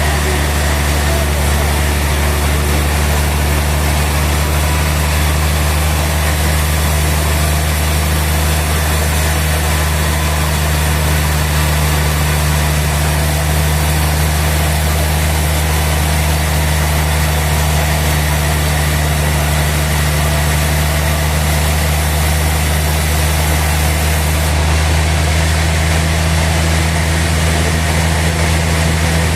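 Sawmill machinery running steadily with a constant low hum and no change in load.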